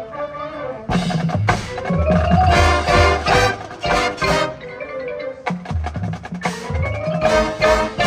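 High school marching band playing its field show. It opens with soft held chords, then about a second in the full band comes in loud, with sharp accented hits from brass and percussion over a heavy low end and mallet percussion ringing through.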